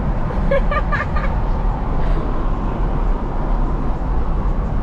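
Steady road and engine rumble of a moving car, heard inside the cabin. A brief voice sound comes about half a second in.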